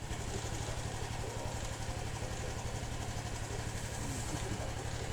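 Yamaha XJ400D motorcycle's air-cooled inline-four engine running steadily at idle.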